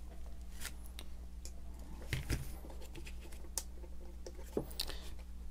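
Scattered light clicks and taps of a plastic electrical connector being handled and a small insulated screwdriver working its terminal screws, heard over a faint steady low hum.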